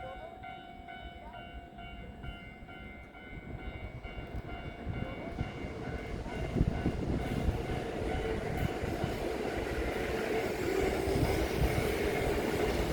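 Electric train moving through the station, its running noise growing louder from about four seconds in.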